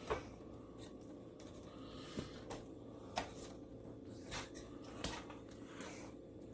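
Scattered light clicks and knocks of a monitor's VESA mounting plate being handled and lined up on a monitor-stand arm, about one every second, over a steady low background hum.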